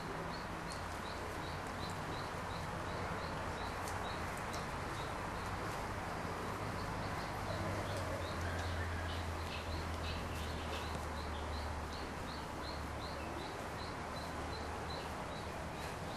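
Steady pen background with a low hum, over which short high chirps repeat evenly, about three a second.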